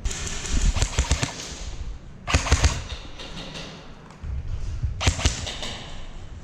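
Airsoft guns firing in three bursts of rapid sharp pops: one at the start, one a little over two seconds in, and one about five seconds in.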